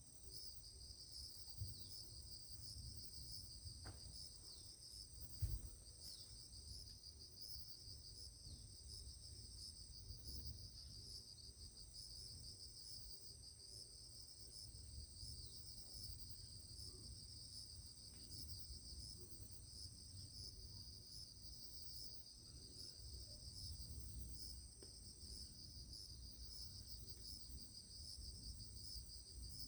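Faint, steady high-pitched insect chorus, a continuous fast-pulsing trill, over a low rumble of handling or wind. A faint click comes about four seconds in and a sharper knock about five and a half seconds in.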